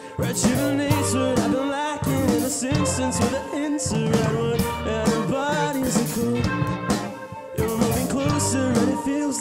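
A rock band playing live: electric guitar and a drum kit with cymbal hits, with a voice singing over them. The music drops back briefly about seven seconds in.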